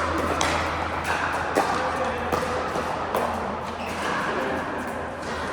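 Sharp knocks of pickleball paddles hitting the ball, three of them in the first half, over a low steady hum and a murmur of background sound.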